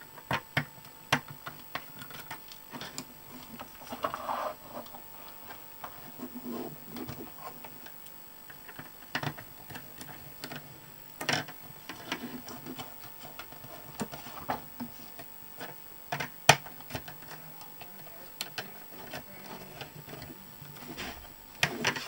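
Irregular small clicks, taps and rustles of hands handling wires and small tools on a workbench, with a few sharper clicks standing out, the loudest about two-thirds of the way through.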